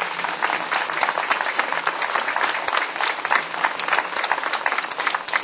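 Crowd applauding: many hands clapping irregularly and densely, to welcome a speaker to the microphone.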